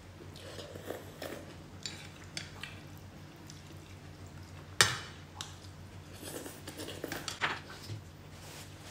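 Table sounds of eating noodles: chopsticks and utensils clicking against ceramic bowls and a steel pot, with the noises of eating between them, and one sharp, loud clink about five seconds in. A faint steady hum runs underneath.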